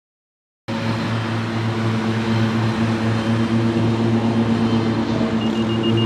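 A steady mechanical hum, a low pulsing drone with several fixed tones above it, that cuts in abruptly under a second in. Its pitch does not rise or fall.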